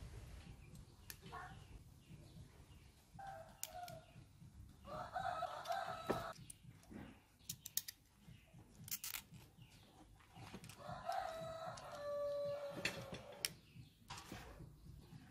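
A rooster crowing several times, each crow about a second long, with scattered sharp clicks and knocks from angle grinder parts being handled.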